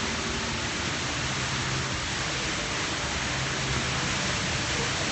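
A steady rushing hiss of noise, like air or falling water, with a faint low hum underneath.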